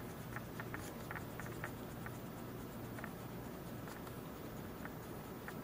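Pencil-top eraser rubbing on paper to erase thin pencil construction lines: faint, irregular scratchy strokes and small ticks.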